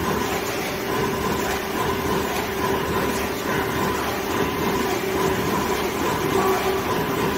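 Steady machine hum from powered-up industrial machinery, with a constant low tone and a fainter higher tone over even noise. There are no punching strokes.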